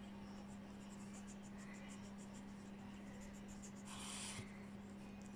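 Quiet room with a steady low hum and faint scratchy ticks; about four seconds in, a brief soft rustle as an English bulldog takes a treat from a hand.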